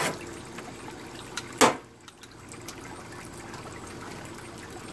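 Metal tongs working a smoked ham off the grill grates, with one loud sharp knock about a second and a half in over a steady hiss.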